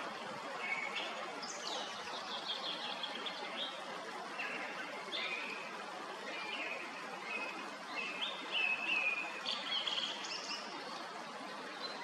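Song thrush singing: short loud phrases of repeated notes, high and clear, with brief pauses between them. Under the song runs the steady rush of a spring stream in flood.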